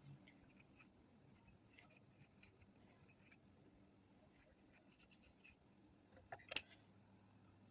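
Faint scratching, rubbing and small clicks from cleaning the inside of a Zippo lighter's metal case, with a sharper, louder clack of metal about six and a half seconds in.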